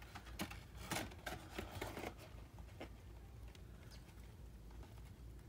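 Faint scratching and rustling from a white feeder mouse scrabbling across a plastic tub and coconut-husk bedding, a few light scratches over the first two seconds.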